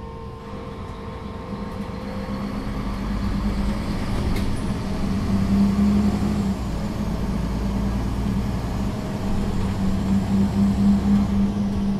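Engine of a Solaris Urbino III 12 city bus heard from on board while it drives. The engine note grows louder over the first few seconds, then holds steady, with a brief dip in its low rumble a little past halfway.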